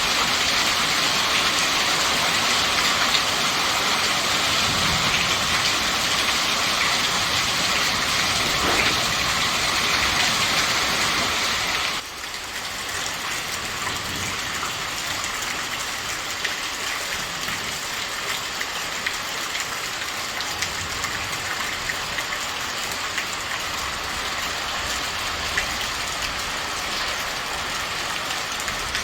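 Steady rain falling, loud for about twelve seconds and then suddenly quieter, with scattered drop ticks in the quieter part.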